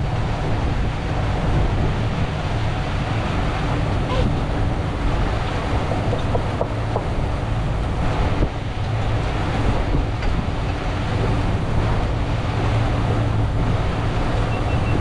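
Twin Mercury V10 350 Verado outboards running steadily at low speed, a low even hum under wind on the microphone and water washing past the hull.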